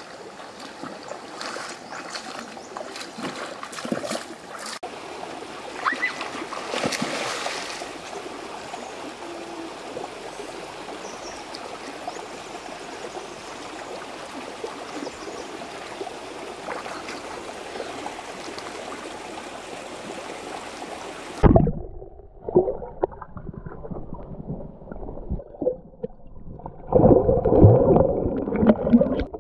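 Stream water running and splashing as someone wades and swims through it. About three-quarters of the way through, the sound cuts abruptly to the muffled sound of a microphone underwater, with bubbling and thrashing near the end.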